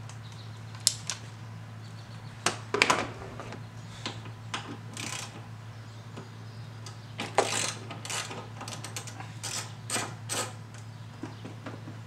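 Hand tools working on car engine-bay parts: irregular metallic clicks, clinks and short scrapes from a ratchet and fasteners being handled, with a few louder clusters about 3 and 7.5 seconds in. A steady low hum runs underneath.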